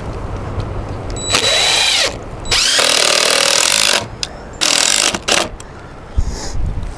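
Power drill running in three bursts of about a second each, its motor pitch rising and falling within each run.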